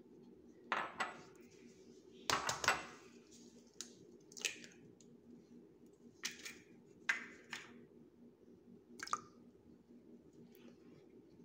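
Short kitchen handling sounds as ingredients go into a glass blender jar: about seven brief knocks, clinks and splashy sounds at uneven intervals over a faint steady hum.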